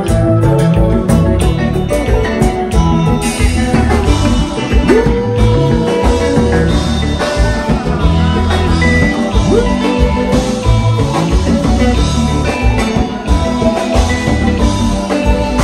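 Live band music played loud through a club sound system: electric keyboard, electric guitar and drum kit with a steady beat, and a long held note that bends up in pitch about five seconds in.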